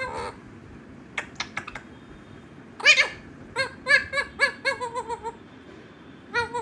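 A pet parrot vocalising: a short call, a few quick clicks, then a loud harsh squawk followed by a rapid run of short pitched notes, about four or five a second, and another call near the end.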